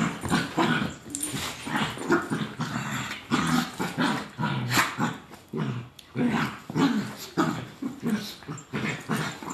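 A dachshund vocalizing in a quick, unbroken run of short calls, about two or three a second.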